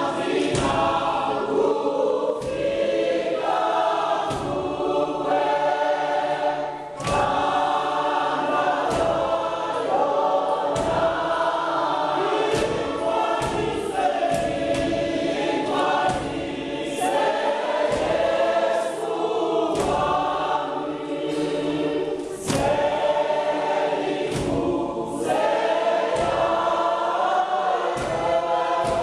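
A church congregation singing a Xhosa Catholic hymn together in many voices, with a steady beat of sharp knocks about once a second.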